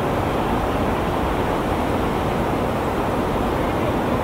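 A steady, even rushing noise of wind and water, with no distinct sounds standing out.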